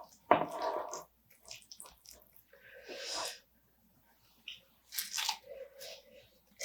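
Close-up biting and chewing of spicy marinated raw crab: several separate crunches as the shell is bitten, the loudest about half a second in, with quieter gaps between.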